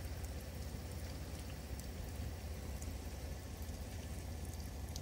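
Faint steady hiss of water running from a garden hose into a travel trailer's black tank to rinse it, over a low steady rumble.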